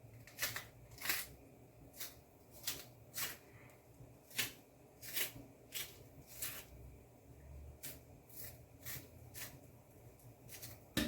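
Knife scraping and cutting the skin of green bananas, a faint series of short, irregular scrapes and clicks, roughly one or two a second.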